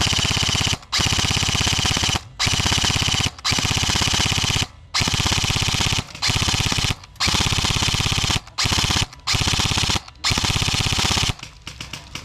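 Airsoft gun firing on full auto in about ten long bursts, each separated by a brief pause, stopping about a second before the end.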